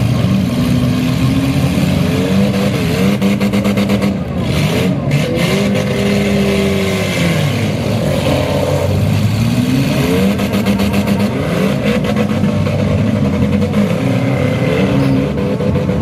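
Several compact-car engines revving hard together, their pitches rising and falling as the demolition derby cars push and ram one another, with a few sharp knocks of impact.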